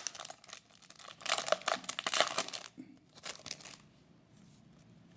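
Foil booster pack wrapper crinkling and rustling as it is handled, in crackly bursts over the first three seconds or so, with a few more just after, then quiet handling.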